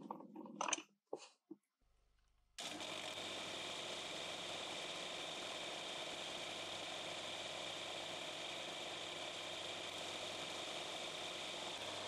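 A few handling clicks, then a small motor-driven machine switches on abruptly about two and a half seconds in and runs steadily.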